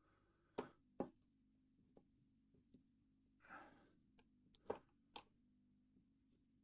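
A few small, sharp clicks of a homemade plastic shim being worked into a TCH 850 handcuff: a pair about a second in and another pair around five seconds in. A short breath out falls between them.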